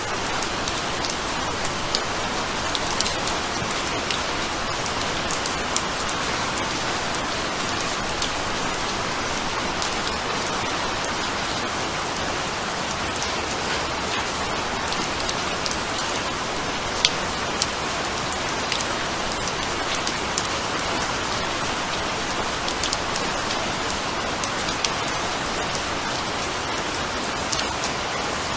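Steady rain falling on surfaces, an even hiss with scattered sharp ticks of individual drops.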